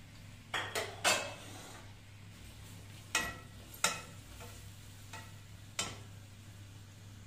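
Plastic slotted spoon stirring sliced onions in oil in a large aluminium pot: a series of scrapes and knocks against the pot, some of them ringing briefly, over a faint sizzle of the onions frying.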